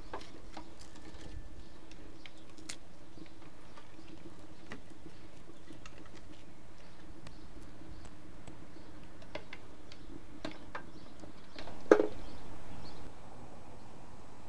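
Small twig fire crackling inside a Kelly Kettle's fire base and chimney: scattered small pops and ticks over a faint steady low hum. There is one sharp knock near the end.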